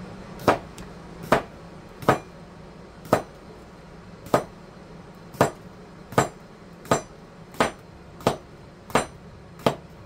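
Cucumbers being cut on a cutting board: twelve sharp knocks of the blade meeting the board, roughly one a second and coming a little faster toward the end.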